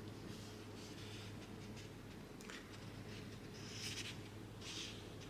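Faint rustling of a paper cross-stitch pattern chart being handled, with a couple of soft swishes near the end, over a low steady hum.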